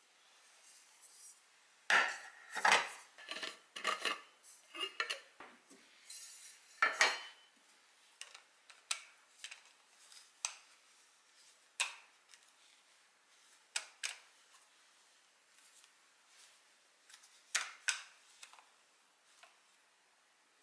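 Plastic screw-on lid of a Zojirushi stainless steel soup jar being handled and taken apart: a quick run of clicks and knocks over the first seven seconds, then sparse single clicks.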